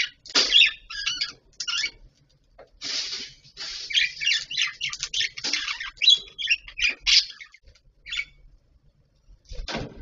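Budgerigars chattering in quick bursts of high chirps and warbles, busiest in the first seven seconds, then a lone chirp. A brief rustle near the end as one budgie moves perch.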